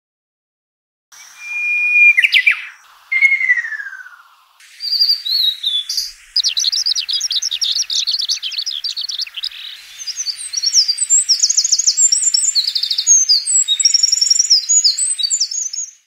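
Songs of several small songbirds, clips from separate recordings spliced one after another, starting about a second in. First come clear whistled phrases, some falling in pitch, then fast high trills and twittering. Each clip starts and stops abruptly.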